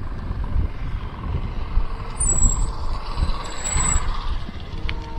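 Wind rumble on the microphone and road noise from a moving electric bicycle, with two short high-pitched squeals about two and three and a half seconds in.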